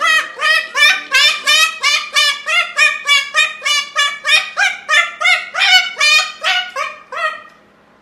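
A white cockatoo calling in a fast, even run of short rising squawks, about three a second, that stops shortly before the end.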